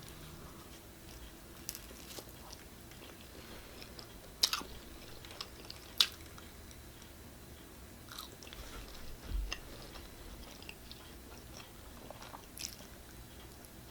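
A person chewing and biting pizza close to the microphone, with scattered small mouth clicks and two louder sharp clicks around the middle.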